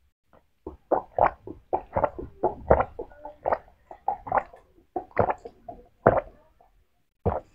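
A person gulping a drink from a glass: a quick, regular series of swallows, about three a second, that stops about six seconds in.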